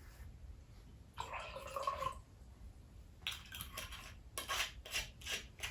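Tableware being handled: a short scrape about a second in, then a quick run of clinks and knocks of jars, dishes and utensils.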